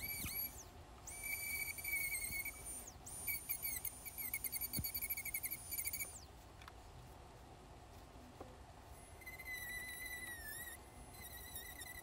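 Dremel-style rotary tool running at high speed, a small burr grinding fine detail into dry maple. Its high whine wavers in pitch as the bit presses into the wood. The whine comes in stretches of a few seconds, stops for about three seconds in the middle, then starts again and dips briefly in pitch under load.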